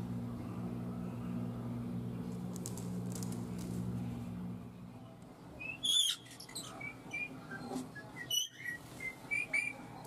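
A steady low hum for about the first five seconds. From about six seconds in, a rose-ringed parakeet (Indian ringneck) gives a run of short, high chirps and whistle-like calls, mixed with small clicks.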